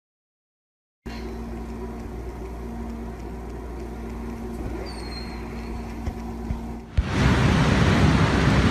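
About a second of silence, then a steady low hum with a faint high chirp for about six seconds, then loud, even road noise inside a moving car starting about seven seconds in.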